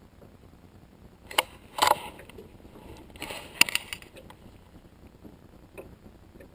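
Short handling noises from fishing gear in a small boat: a few clicks and scrapes about a second and a half and two seconds in, then a rattling scrape with one sharp click a little after three seconds.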